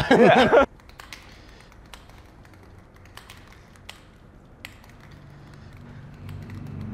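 A quiet room with a few faint, scattered clicks and taps after a brief voice at the start. A low background music bed fades in near the end.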